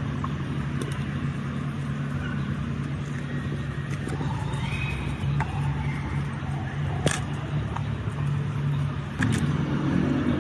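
Steady low hum of an idling engine. There is a sharp knock about seven seconds in and another near the end.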